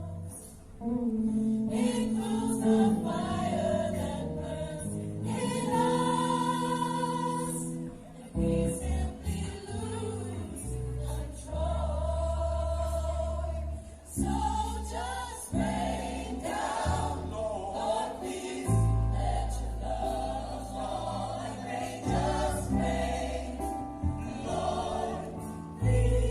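Gospel-style choir singing held chords over an instrumental backing with deep bass notes.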